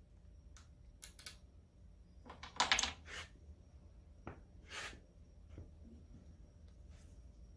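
Light metal clinks and clatter of tools and engine parts being handled during an engine teardown. The loudest burst of clattering comes about two and a half seconds in, with another about five seconds in.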